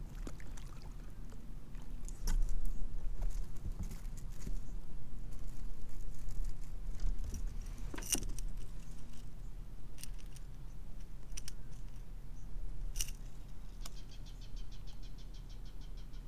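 Scattered clicks, taps and knocks of fishing gear being handled in a plastic kayak. Near the end comes a quick run of evenly spaced ticks as a fishing reel is worked.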